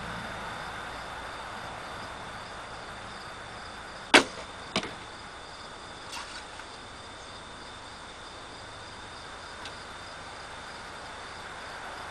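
Wooden recurve bow (Ben Pearson Razorback, 45 lb) shot: a sharp snap of the released string about four seconds in, then about half a second later a fainter knock as the cedar arrow strikes the target 30 yards off. Crickets chirr steadily behind.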